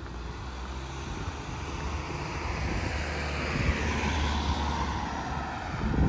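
A motor vehicle passing close by: a low engine hum and a rushing hiss that build steadily, peak near the end and fall away quickly.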